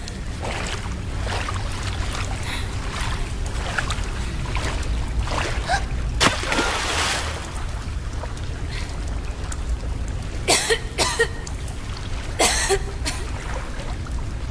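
Dark, rumbling film ambience: a steady low rumble with scattered short rustles and sharp snaps, louder clusters about ten and twelve seconds in.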